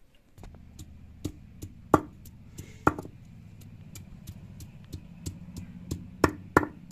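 Cylindrical stone roller of a flat grinding stone (sil-batta) struck down onto peeled garlic cloves on the stone slab, crushing them: sharp stone-on-stone knocks about three a second, a few of them much louder.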